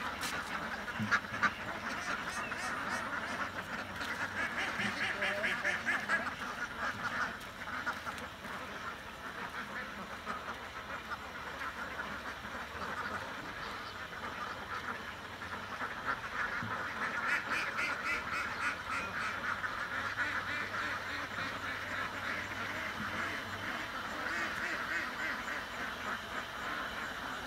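A large flock of domestic ducks quacking together in a dense, continuous chorus, swelling louder about five seconds in and again about eighteen seconds in.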